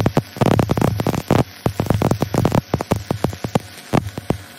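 Stick-welding arc on steel pipe, burning a cellulose (6010/8010-type) rod downhill: loud, irregular crackling and popping over a low hum. The crackle thins out and stops near the end as the arc goes out.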